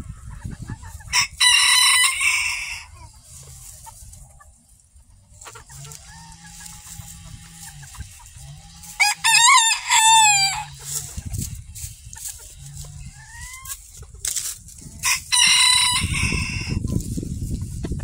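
Mille Fleur mix roosters crowing: three loud crows, about a second in, around nine seconds in, and near fifteen seconds in, the middle one wavering up and down in pitch.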